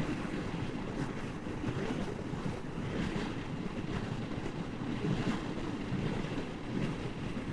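Steady wind rush on the rider's microphone while riding the Moto Guzzi V85 motorcycle, with the bike's engine running beneath it.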